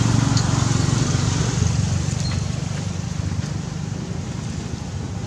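A low, steady engine rumble from a motor vehicle, fading slowly.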